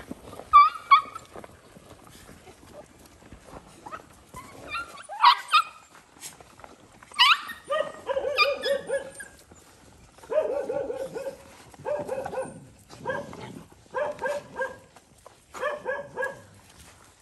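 Dogs and puppies crowding around a food dish, yelping and barking in short repeated calls. There are sharp cries about five and seven seconds in, and groups of quick barks through the second half.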